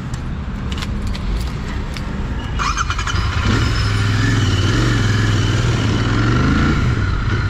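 Motorcycle engine running, getting louder from about three seconds in, its pitch wavering and rising, after a few clicks.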